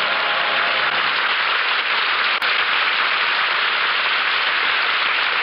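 Studio audience applauding, a dense steady clapping, with the last notes of the choir and orchestra dying away in the first second.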